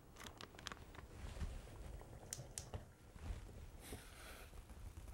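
Faint handling sounds: a few light clicks and soft plastic rustles as a brine-filled zip-top bag is pressed and sealed into the mouth of a jar of packed cabbage, with a brief swish about four seconds in.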